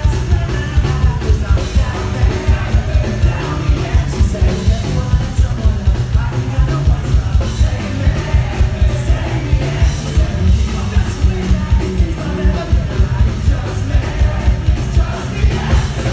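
A live ska-punk band with a horn section plays loud and fast: saxophones, trombone, electric guitar and drums over a steady driving beat, with a singer's voice on top.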